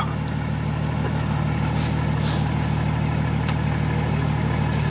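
Off-road SUV engine idling steadily, with a sharp click at the start and a few faint clicks over the steady hum.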